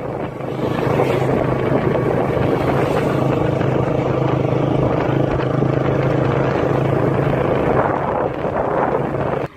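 Motorcycle engine running steadily at cruising speed, a constant low drone with wind and road rush over the microphone.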